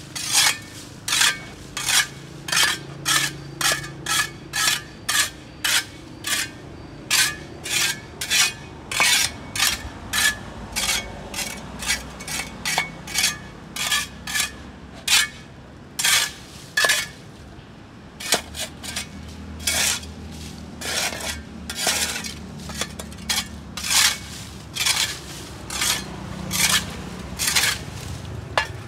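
A hand tool scraping dirt and grass off a sidewalk in quick repeated strokes, about two a second. The strokes grow weaker and less regular after about two-thirds of the way through.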